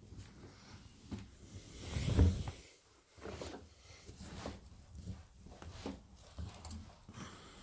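Clothes being pushed by hand into a front-loading washing machine drum: fabric rubbing and rustling against the drum and door seal, with a louder dull thump about two seconds in.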